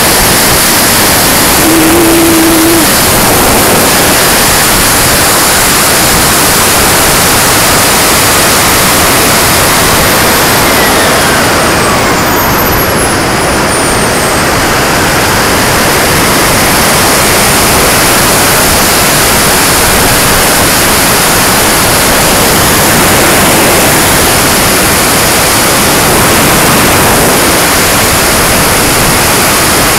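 Loud, steady rush of air and turbine noise on board a turbine-powered RC jet in flight, picked up by a camera mounted on the airframe. A thin high whine falls in pitch about ten to thirteen seconds in.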